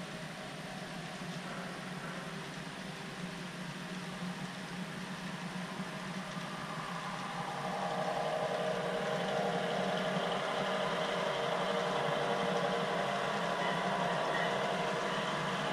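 HO scale model freight train led by NYC E7 diesel locomotives, approaching along the layout: its running sound grows louder from about eight seconds in, over a steady hum.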